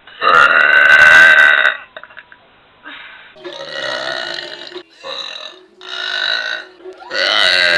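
A person burping loudly: a long burp of about a second and a half near the start, several shorter, quieter sounds in the middle, and another long, loud burp beginning near the end.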